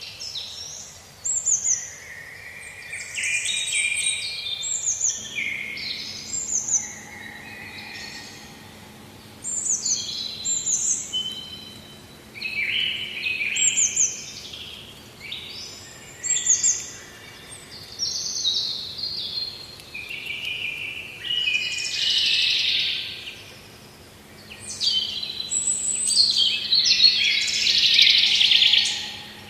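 Songbirds chirping and singing almost without pause, many quick falling whistles and trills overlapping, with busier, louder bursts of song near the middle and toward the end.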